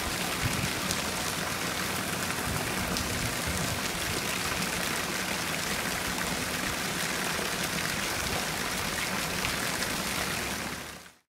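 Steady rush of a small stream splashing over rocks, fading out near the end.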